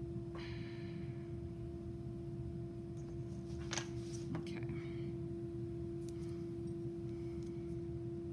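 A steady hum at one unchanging pitch runs throughout, with a faint overtone. A few faint scrapes and clicks come from hands and a tool working the clay teapot's spout, about half a second in and again near the middle.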